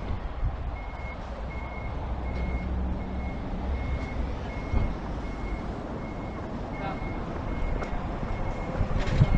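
Vehicle reversing beeper sounding a steady high beep about every three-quarters of a second, over the low rumble of an engine. A brief louder noise comes near the end.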